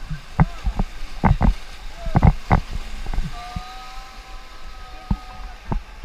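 White-water river rapids rushing around a paddle raft, with a string of sharp, irregular splashes and knocks as paddles strike the water.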